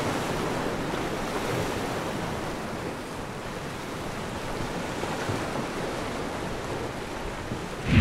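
Ocean waves washing steadily, an even surf noise with no distinct breaks.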